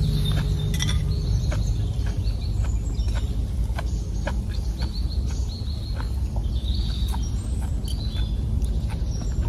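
Small birds chirping in short calls over a steady low rumble, with light clicks of metal spoons against plates now and then.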